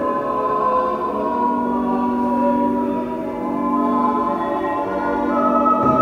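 Choir singing slowly in long held chords, the harmony shifting about a second in and again near the end.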